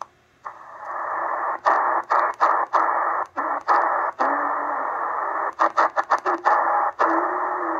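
XHDATA D808 shortwave receiver in upper-sideband mode, its speaker playing hissy static through the narrow SSB filter as it is tuned down from 9000 kHz. The static cuts out in short gaps as the frequency steps, several in quick succession near the middle, with a few brief low whistles of carriers. The owner takes the static for the receiver being overloaded by a strong station.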